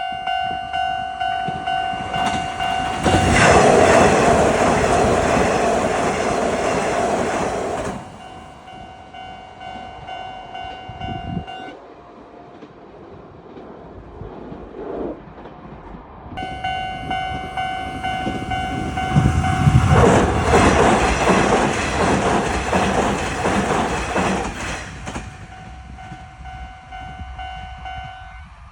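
Railway level-crossing warning bells clanging in a steady repeating beat, with a Nishitetsu train rushing past about three seconds in. The bells stop near twelve seconds, start again about four seconds later, and a second train passes about twenty seconds in before the bells stop near the end.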